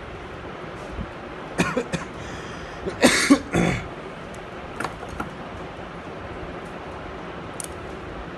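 A person coughing a few times, loudest about three seconds in, over steady background noise.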